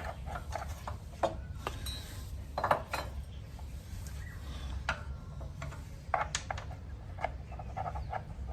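Motorcycle footpeg and its mounting bracket being handled: a scatter of light metal clinks and taps, with one sharp clack at the start.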